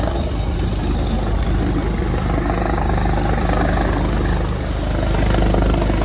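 Rescue helicopter hovering during a hoist airlift, its rotor beating steadily with a rapid, even chop.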